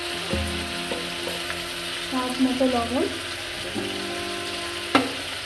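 Spice paste sizzling in hot oil in a steel kadai, stirred and scraped with a metal spatula. A few sharp clicks of the spatula against the pan, the loudest about five seconds in.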